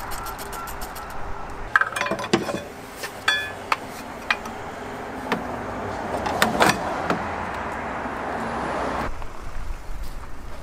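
Hand tools working on a BMW E46 engine bay: a socket ratchet clicking rapidly at first, then a run of sharp metallic clinks and knocks as tools strike the engine while the exhaust manifold fixings are worked loose.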